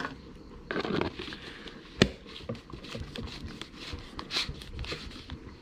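Plastic lid being fitted and screwed onto a glass jar: irregular rubbing and scraping handling noise, with one sharp click about two seconds in.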